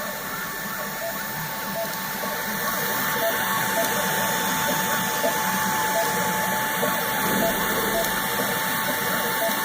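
3D printer printing: stepper motors whining in steady tones over a constant hiss of cooling fans, with small short blips recurring under a second apart as the head moves.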